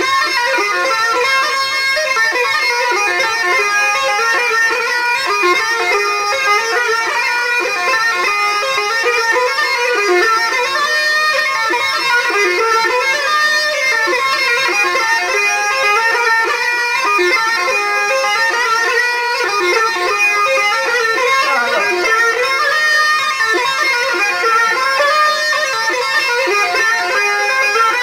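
Traditional folk music led by a reedy wind instrument playing a continuous melody at a steady level, without pause.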